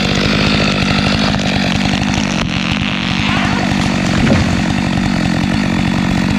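Stihl MS 462 two-stroke chainsaw engine idling steadily with its throttle released.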